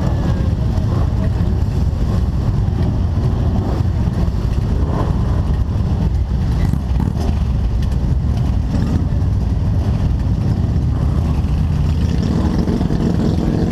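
Motorcycle engines running at low speed in slow, close traffic: a steady, low rumble that holds throughout.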